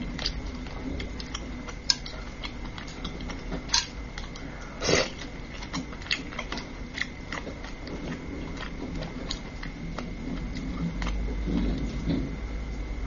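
Close-up eating sounds: wet chewing and lip smacks on braised fish, with irregular small clicks and taps as chopsticks pick through the fish in its sauce.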